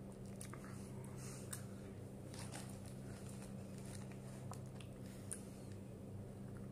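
A person chewing food, with scattered soft clicks from the mouth, over a steady low hum.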